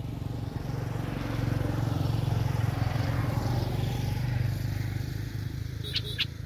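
Engine of a passing vehicle or boat, a steady low hum that grows louder about a second in and eases off after about five seconds. A bird gives a quick few chirps near the end.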